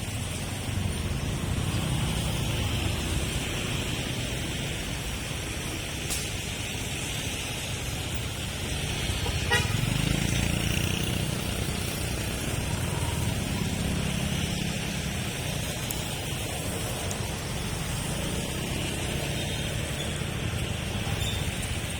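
City street traffic: cars and motorbikes running past in a steady rumble, with a vehicle horn tooting.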